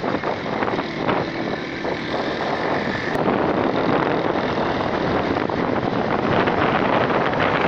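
Steady rush of wind and vehicle noise from riding along a road. A faint high whine cuts off about three seconds in.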